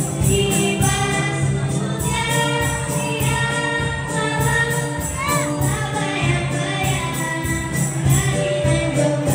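A children's school ensemble playing a song: recorders and melodicas carrying the melody with a girl singing into a microphone, over a steady beat of cajon and jingling percussion.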